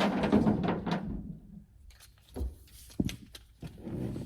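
Plastic trim cover at a car's sun visor mount being pried with a tool: about a second and a half of creaking and scraping of plastic, then two short knocks.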